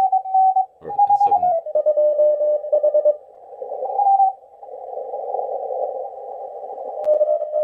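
Morse code (CW) signals received on an amateur radio receiver: keyed beeps from two or more stations at different pitches, sometimes overlapping, over band hiss narrowed by the CW filter.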